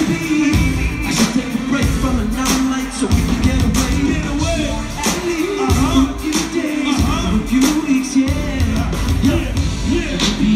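Live pop music: a male singer over a band with a steady drum beat and a held low note.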